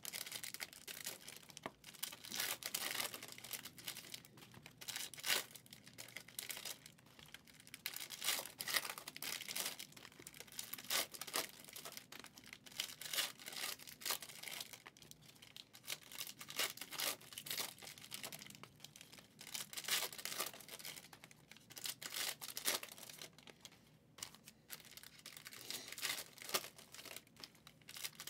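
Trading-card packs from 2023 Prizm NFL Mega boxes being torn open by hand, their wrappers crinkling and ripping in a steady run of short rustles and rips.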